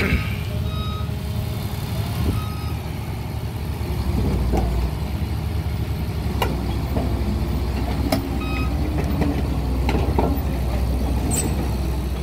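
Crawler crane's diesel engine running steadily, with a few short beeps and several sharp, unevenly spaced metallic clicks.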